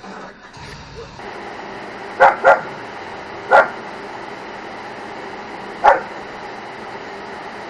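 A dog barking: four sharp barks, a quick pair about two seconds in, another a second later and a last one near six seconds.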